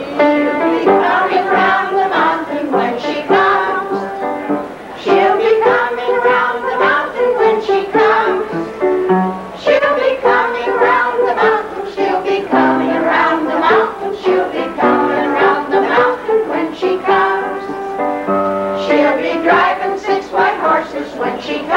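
Kitchen band playing an instrumental tune, the buzzy kazoo-type horns carrying the melody over the backing in short phrases.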